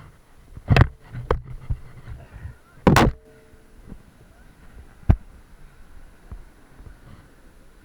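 A few scattered knocks and thumps: a heavy one just under a second in, a lighter one soon after, the loudest about three seconds in, and a short sharp click about five seconds in.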